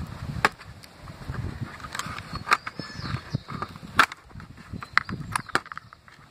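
Irregular clicks and light knocks of hands handling an opened netbook's plastic casing and pulling its internal cables loose, over low handling rumble; the sharpest clicks come about two and a half and four seconds in.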